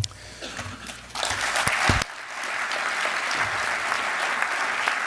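Audience applauding. The clapping starts about a second in and then carries on steadily, with a couple of sharp knocks about two seconds in.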